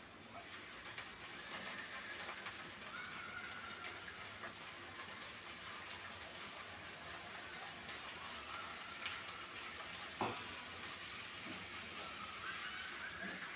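Onion, tomato and whole spices sizzling steadily in a pan as spinach leaves are added and stirred in, a faint, even frying hiss. A single knock about ten seconds in.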